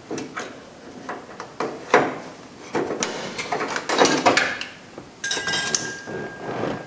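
Metal clinks, taps and knocks of hand tools and hardware against the bare steel inner panel of a car door during window adjustment, with a thin steady high tone starting about five seconds in.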